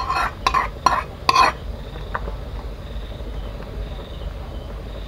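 Metal ladle stirring in a big metal pot of crab rice porridge, with four sharp clanks of metal on metal in the first second and a half, then quieter stirring.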